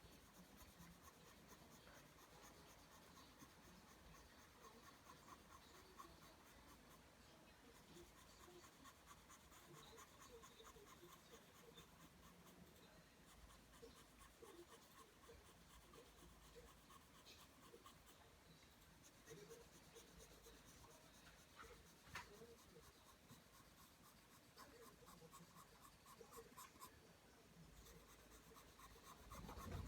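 Pencil drawing lines on paper: a faint, continuous run of short scratching strokes.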